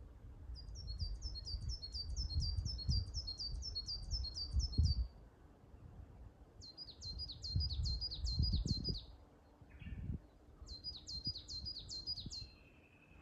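Coal tit singing: three bouts of rapidly repeated high two-note phrases. The first bout lasts about four and a half seconds, and the other two are shorter, coming at about seven and about eleven seconds in. A low rumble runs underneath.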